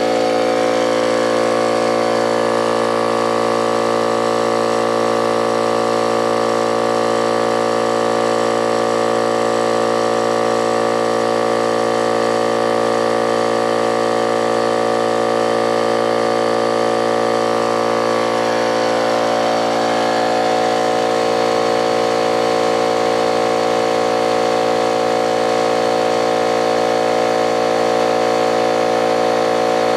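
Brute 10-gallon portable air compressor running steadily, its electric motor and pump filling the tank. The tone shifts slightly about two-thirds of the way through as the tank pressure builds toward cut-out.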